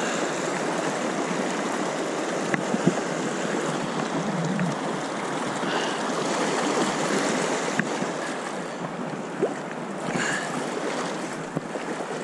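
Steady rush of river water over a rocky riffle, with a couple of small clicks about three seconds in.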